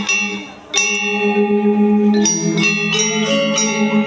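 Balinese gamelan ensemble playing: bronze metallophones struck together, their notes ringing on over a low note that pulses steadily. A softer passage gives way to a loud full-ensemble strike about a second in.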